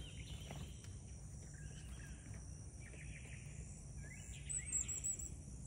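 Backyard ambience: a steady high insect drone with a few faint bird calls scattered through it, one cluster of calls a little louder about four and a half seconds in.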